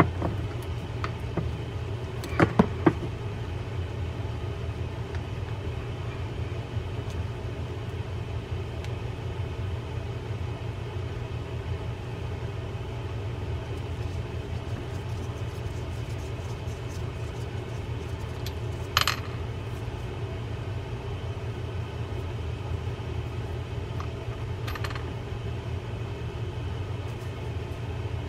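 Small metal parts of an Okuma Salina 80 bait feeder reel clicking and clinking as the reel body is taken apart by hand, over a steady low hum. Three quick clicks come a couple of seconds in, a single ringing metallic ting about two-thirds of the way through, and a fainter click near the end.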